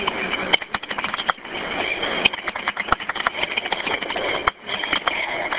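Telephone-line audio of a 911 call with no one speaking: a steady hiss with many scattered clicks and knocks, dropping out briefly about four and a half seconds in.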